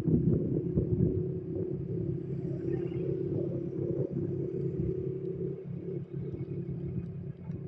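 Honda 125 cc single-cylinder four-stroke motorcycle engine running steadily at cruising speed, with wind buffeting the microphone.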